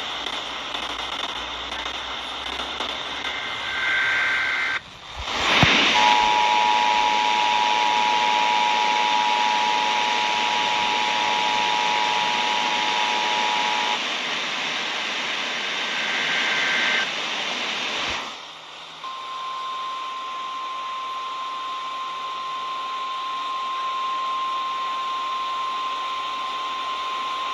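Emergency Alert System test tones over a radio hiss: a short burst of screeching data noise, then the two-tone attention signal held for about eight seconds, another short data burst, and then a single steady weather-radio alert tone lasting about nine seconds.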